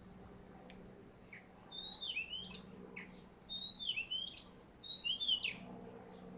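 A songbird singing three similar phrases of quick slurred whistled notes, each about a second long and about a second apart, over a faint steady low hum.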